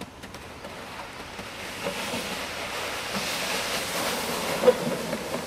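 Plastic toboggan sliding over snow: a steady rushing hiss that grows louder as the sled comes closer, with a brief knock near the end.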